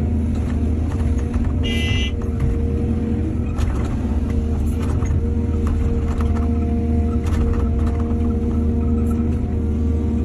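Heavy diesel engine of earthmoving machinery running steadily, with scattered clanks and knocks. A brief high squeal comes about two seconds in.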